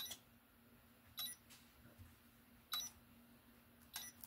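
Electronic touch light switch giving four short beeps, one for each touch pad pressed, spaced about one to one and a half seconds apart: the repaired switch is responding to touch.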